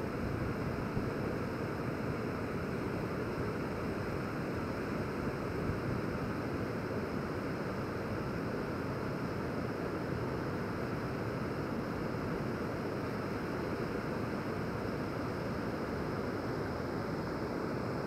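Steady rush of river water pouring over a low dam and churning through rocky rapids.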